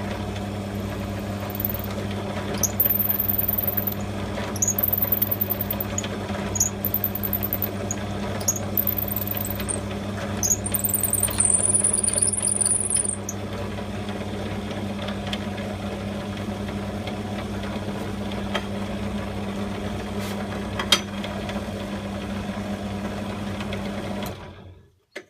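Drill press motor running with a steady hum while the bit cuts pin holes through a knife handle's scales in short repeated pecks during the first half; the machine stops just before the end.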